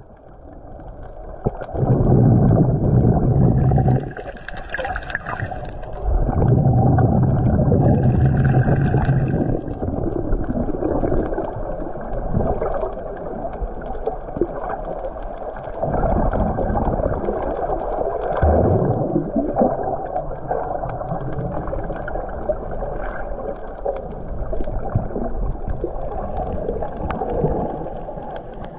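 Muffled underwater ambience picked up by a camera under water, with loud gurgling bursts of bubbles lasting two to three seconds and repeating every several seconds.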